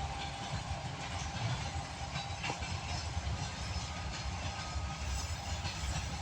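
Freight train behind a 2TE116 diesel locomotive moving off, a steady low rumble with an occasional click.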